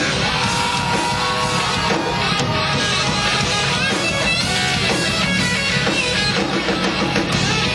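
Live rock band playing loudly, with distorted electric guitar up front.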